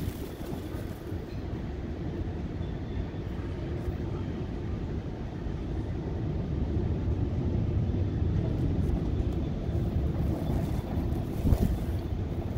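Steady low rumble of road and engine noise from a car being driven, with a single thump near the end.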